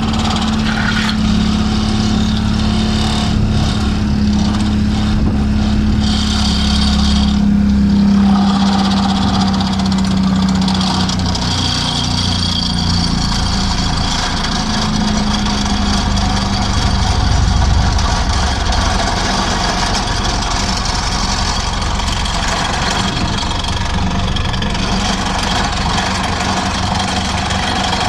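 Excavator-mounted vibratory hammer driving a steel sheet pile, over the excavator's diesel engine: a loud, continuous heavy mechanical rumble. A steady hum holds for roughly the first ten seconds, drops away, and comes back briefly around the middle.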